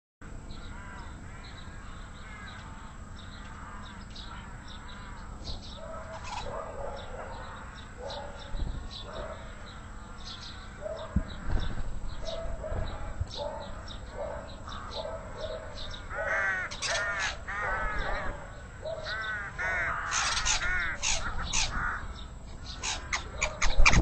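Garden birds chirping and singing, mixed with the harsh, repeated calls of an unseen bird squabbling. The calls come thick and fast, busier and louder from about two-thirds of the way in.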